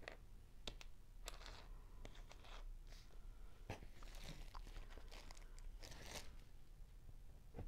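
Faint handling sounds of small Lego parts: a small clear plastic parts bag crinkling in short rustles, with light clicks of plastic pieces set down on a paper sheet on a table.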